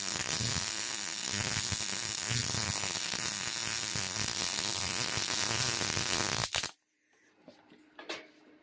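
MIG welding arc on solid wire with shielding gas, laying a weave bead on steel plate: a steady crackling buzz that stops abruptly about six and a half seconds in as the trigger is released. A couple of faint clicks follow.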